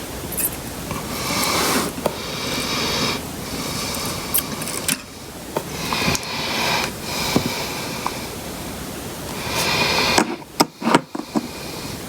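Bench work desoldering a potentiometer from a guitar-pedal circuit board: scattered light clicks and taps of tools and parts, with repeated swells of hissing noise and a quick flurry of clicks about ten seconds in.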